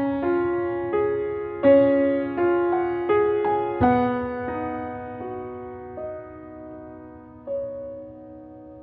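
Soft background piano music: single struck notes and chords at a gentle pace, thinning out after about four seconds and fading away.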